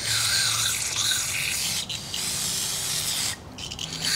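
Aerosol brake parts cleaner hissing out of the can in long bursts, with a short break about two seconds in and another near the end, flushing cutting chips out of freshly tapped threads in an aluminium engine case.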